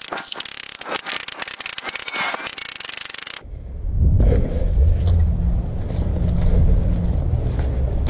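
A quick, irregular run of sharp clicks and knocks, then from about three and a half seconds in a sudden change to a loud, low rumble.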